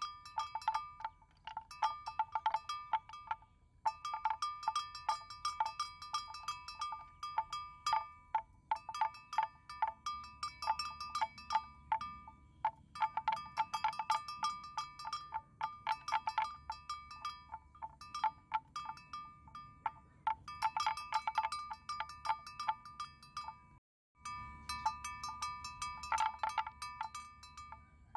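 A metal bell worn on a water buffalo's neck clanks in irregular runs of quick strikes with short pauses between, ringing as the animal moves its head while grazing.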